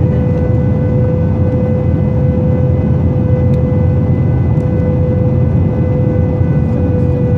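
Airbus A320 cabin noise on approach with the flaps extended, heard from a window seat over the wing: a steady, loud rumble of engines and airflow with a steady whine above it.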